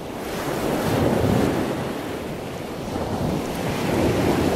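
A loud rushing wash of noise like breaking surf, swelling about a second in, easing off, then building again toward the end.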